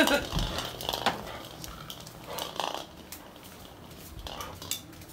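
A dog scrabbling after a ball on a tile floor: scattered light clicks and knocks, with a short louder scuffle about two and a half seconds in.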